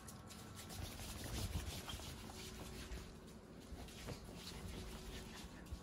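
Faint scuffing and scattered light ticks of a ferret's claws on a laminate floor, over a low rubbing of handling noise.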